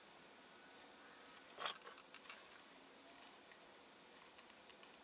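Small tools and a circuit board being handled on a wooden workbench: one sharp click about one and a half seconds in, with faint ticks and light knocks around it and after.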